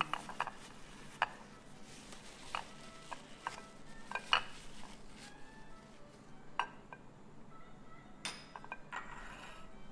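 Scattered light taps and clinks of a white ceramic serving dish being handled while its rim is wiped clean with a tissue. The sharpest tap comes about four seconds in.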